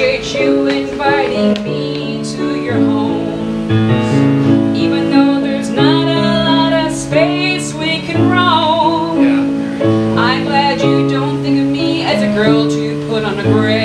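A woman singing an improvised song to electric keyboard accompaniment, with long held notes and vibrato over sustained chords.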